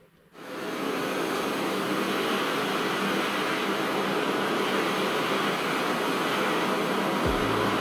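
Handheld butane torch burning with a steady, even hiss, its flame heating a metal branding stamp.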